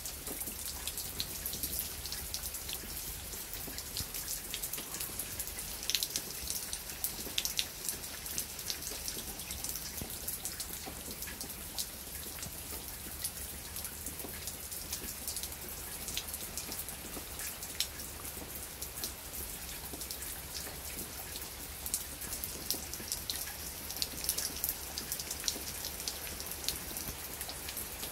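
Heavy rain falling steadily: a continuous hiss with a dense patter of sharp individual drop impacts close by.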